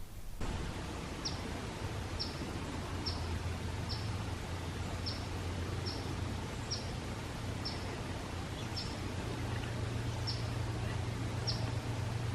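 A bird repeating short, high chip notes about once a second, over a steady low rumble of outdoor background noise.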